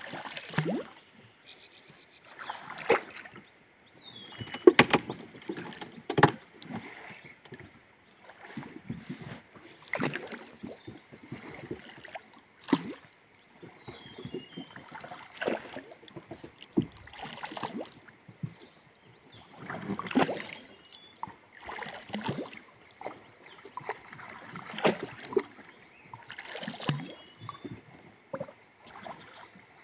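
Wooden paddle strokes dipping and splashing in river water as a canoe is paddled, about one stroke every two to three seconds.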